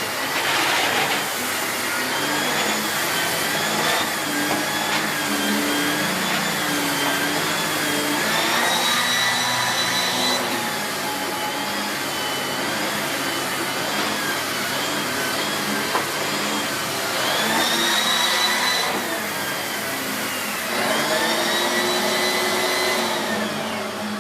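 Miele S8 canister vacuum cleaner running steadily while vacuuming, its motor whine wavering and rising in pitch a few times.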